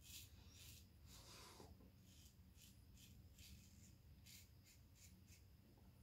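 Faint, quick scraping strokes of a Valet AutoStrop safety razor cutting stubble through shaving lather, about two or three strokes a second.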